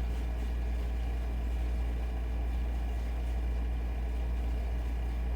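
A steady low hum with faint high steady tones above it, unchanging throughout.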